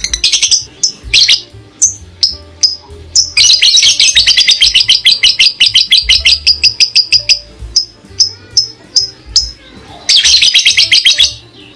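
A parrot chirping loudly in sharp, high-pitched notes: scattered single chirps, then a long fast run of rapid chirps, and another dense burst near the end.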